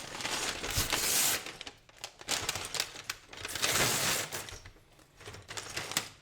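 Plastic LEGO parts bag crinkling as it is opened and emptied, with many small plastic bricks clattering and clicking against each other. The rustle swells twice, about a second in and again near four seconds.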